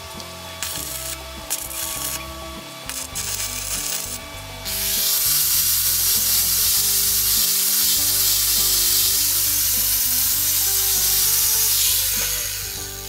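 Crackling of an electric arc welder's electrode fusing steel nuts together. About a third of the way in, an angle grinder starts grinding across the welded nuts with a loud, steady rushing noise that fades out near the end.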